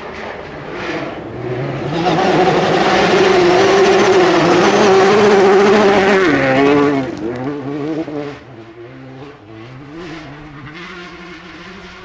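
Rally car passing at speed on a gravel stage: the engine builds to full throttle with gravel and stones spraying from the tyres, and its pitch drops sharply about six and a half seconds in as it goes by. It then fades away, the engine note rising and falling through gear changes.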